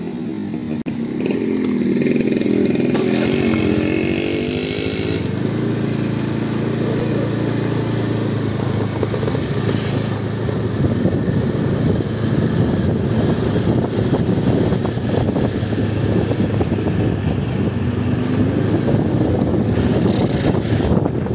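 Motorbike engine running while riding, its pitch rising and falling for a few seconds after it comes in about a second in, then holding steady, with wind and road noise.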